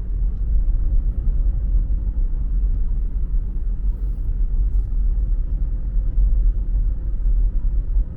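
Steady low rumble of a car driving along a road: tyre and engine noise, with a faint steady hum above it.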